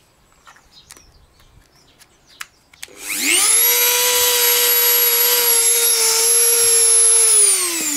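Dremel rotary tool with a small cutting disc spinning up about three seconds in, running at a steady high-pitched whine, then winding down and falling in pitch near the end. Before it starts there are a few faint clicks of handling.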